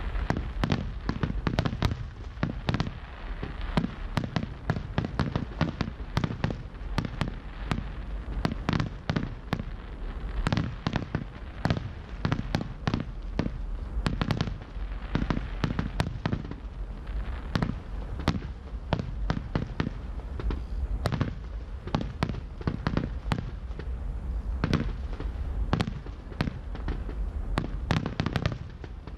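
Aerial fireworks shells bursting in a dense, unbroken barrage: many overlapping bangs and pops every second over a low rumble.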